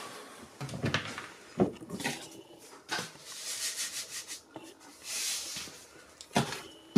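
Handling noises: a handful of light knocks and clicks, with a short rustle about five seconds in.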